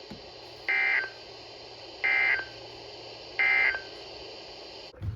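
Three short Emergency Alert System (SAME) digital data bursts, evenly spaced about 1.4 seconds apart, over a steady background hiss. These are the end-of-message code that closes a broadcast warning.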